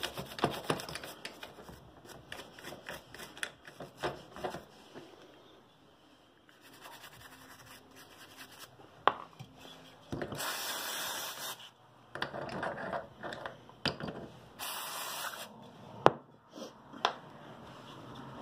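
Carburetor parts being scrubbed in quick rubbing strokes, then two short hissing blasts of aerosol brake cleaner about ten and fourteen seconds in, with a few sharp clicks between.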